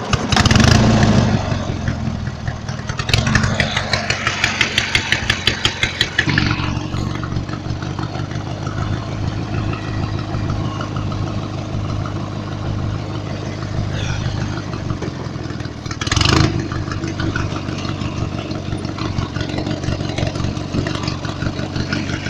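Riding lawn mower's small engine running, pulsing quickly and evenly for the first few seconds, then settling into a steady run about six seconds in. A single thump comes about sixteen seconds in.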